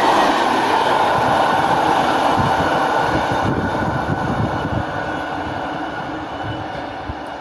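Freight train rolling past on the rails, a steady rumble of wagons and wheels that fades gradually as it draws away.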